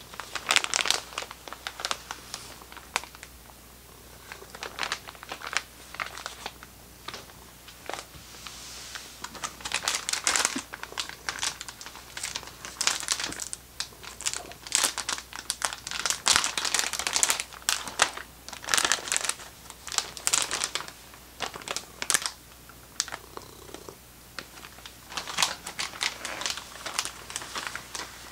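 Plastic packet of dried bonito flakes crinkling and crackling in repeated bursts, with short pauses, as hands open it and dig flakes out.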